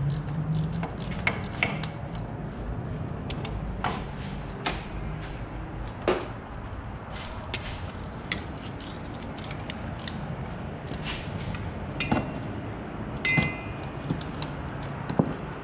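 Hand tools and loose metal parts clinking and knocking during wheel-bearing removal: scattered sharp clicks, with two brief ringing metal clinks near the end, over a low steady hum.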